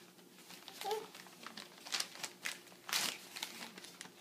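Newspaper rustling and crinkling in irregular bursts as a baby's hands grab and crumple the pages, the loudest crumple about three seconds in.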